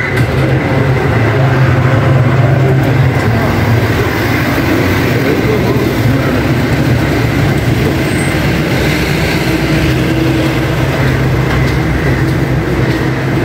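Steady low engine rumble of road traffic.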